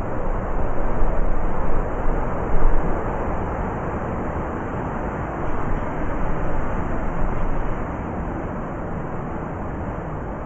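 Blizzard wind blowing: a continuous deep rush that swells in a few gusts in the first three seconds, then settles to a steadier, slightly weaker blow.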